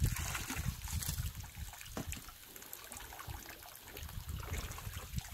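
Shovel working through wet, settled dirt and water at the bottom of a plastic mixing tub: irregular scraping, squelching and trickling of muddy water, with a sharp click about two seconds in. The mud is sediment from compost material washed in a water bath, where the dirt and rocks have sunk to the bottom.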